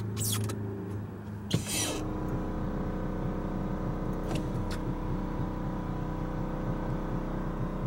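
Electric brake vacuum pump switching on about two seconds in, just after a short knock, then running steadily with a constant hum and low rumble.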